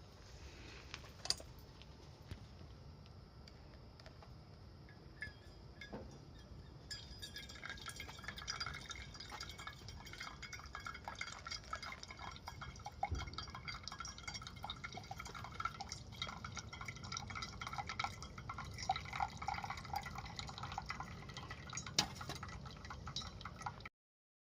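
Liquid bubbling and dripping: many small rapid blips and clicks, which thicken from about seven seconds in.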